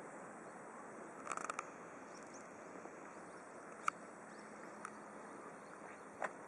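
Faint steady hiss of a train car's interior, broken by a short cluster of chirping clicks about a second in and single sharp ticks near four, five and six seconds.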